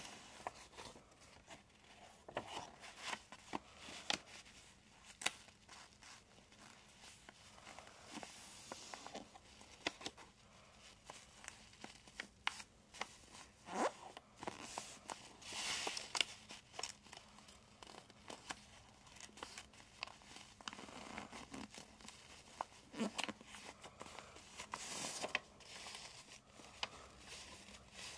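Origami paper being folded and creased by hand: irregular crisp rustles and clicks, with longer sliding rustles about halfway through and again near the end.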